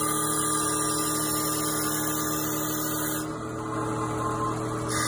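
Mini CNC wood lathe running with a steady electric hum made of several fixed tones. About three seconds in, the sound changes and drops slightly in level.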